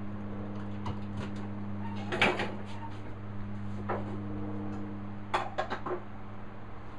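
A steady low hum with a few short knocks and clicks, one cluster about two seconds in and another a little after five seconds.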